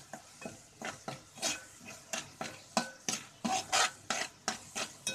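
Steel spoon scraping and stirring against the bottom of an aluminium pot, working ground spices into frying onion paste, in short repeated strokes about three a second.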